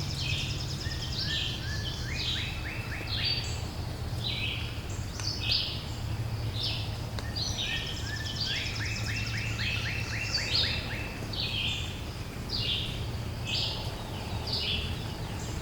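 Small birds chirping, with many short high calls throughout and two quick runs of repeated notes, over a steady low background hum.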